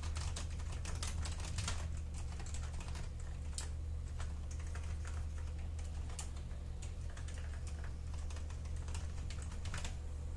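Typing on a vintage Alps keyboard with reed-switch keys ("Super Alps"): irregular key clicks, a quick flurry in the first two seconds, then slower, spaced-out keystrokes. A steady low hum runs underneath.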